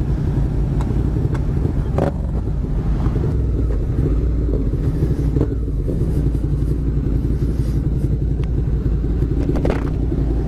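Motorcycle riding along, its engine running under a steady low rumble of wind buffeting the helmet-mounted microphone.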